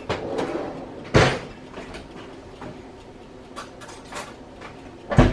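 Two sharp knocks, one about a second in and a louder one near the end, with faint clicks between: the handling of a mayonnaise jar against a stainless steel pot of boiled potatoes and the stovetop while mayonnaise is added.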